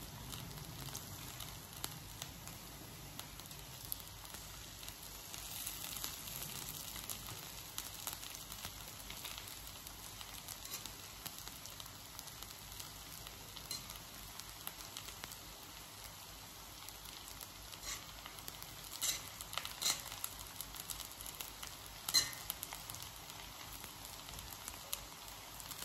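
Fried rice with meat sizzling in a hot wok while a utensil stirs and scrapes it round the pan, a steady hiss throughout. A few sharp clinks of the utensil on the pan come near the end.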